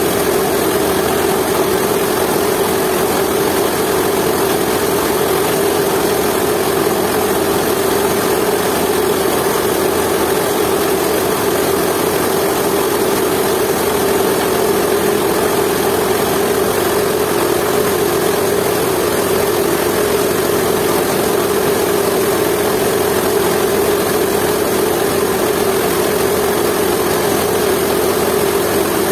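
Jiangdong 8 hp single-cylinder diesel engine running steadily, belt-driving a coffee grinding mill as it processes dry coffee beans.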